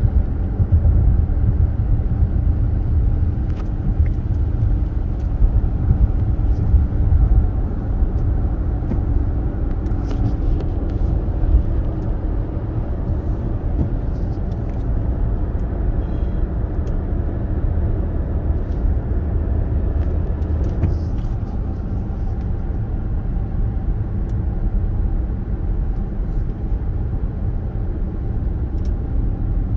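A supercharged Range Rover driving, heard from inside the cabin: steady road and engine rumble, with a faint steady hum over it for roughly the first twelve seconds.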